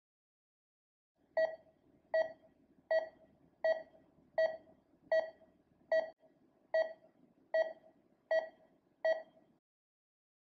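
Patient monitor's pulse beep: eleven short tones of the same pitch at an even pace of about 78 a minute, like a heart-rate tone, starting about a second in and stopping about a second before the end.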